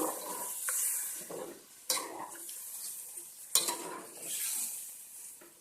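Spiced chicken sizzling in a hot pan just after water has been added, with a spoon stirring and clinking sharply against the pan twice.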